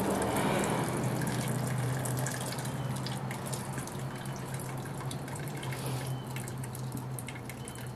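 Hot water dripping and splashing from batik shirts being worked in a pot to get the wax out, over a steady low hum that stops near the end.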